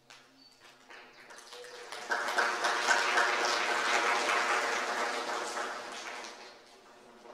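A loud rushing noise that swells in about two seconds in and fades away over the next four seconds, played back through a loudspeaker: the opening sound of a tribute video.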